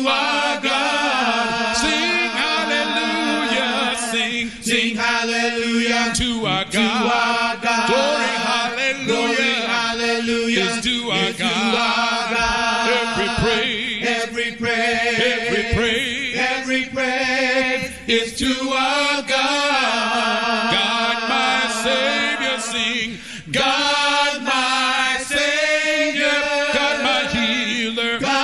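Worship team of men's and women's voices singing a gospel praise chorus together through microphones, without a break.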